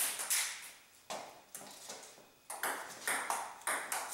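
Table tennis ball struck back and forth, sharp clicks of the ball on paddles and table in a quick rally, with a gap of about a second near the middle before play picks up again.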